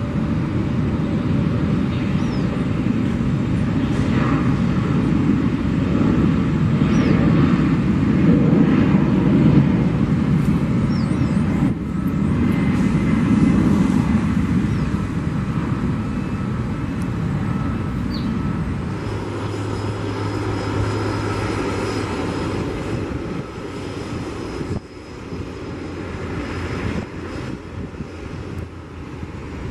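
Aircraft engines running as planes roll and taxi on the runway and taxiway, in several short clips. The engine noise is loud through the first two-thirds, breaks off sharply twice, and carries a steady low hum for a few seconds before it ends quieter and more uneven.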